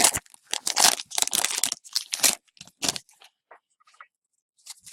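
A trading-card pack wrapper being torn open and crinkled: a run of short tearing and crinkling bursts over the first three seconds, then a few faint rustles.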